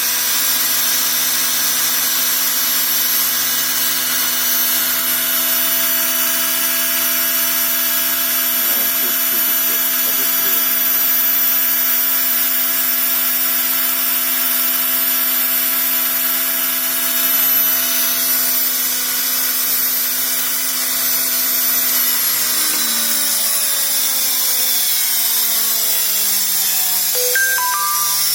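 Washing-machine commutator motor running on a test stand with a steady whine and brush hiss, its brushes bedding in. About 22 seconds in, its pitch starts falling steadily as the motor slows down.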